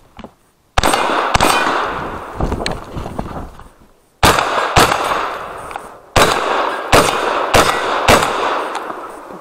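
Benelli M2 Speed 12-gauge semi-automatic shotgun firing eight shots in three quick strings, two, two and then four, each shot leaving a long ringing decay.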